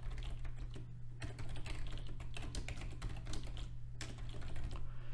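Typing on a computer keyboard: a quick, uneven run of keystrokes, with a steady low hum underneath.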